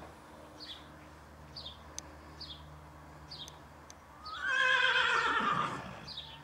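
A horse whinnies once, a single wavering, pitched call of nearly two seconds starting a little after four seconds in. A bird chirps repeatedly in the background.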